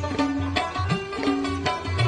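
Background music: a plucked string instrument in a Middle Eastern or folk style over a steady repeating beat.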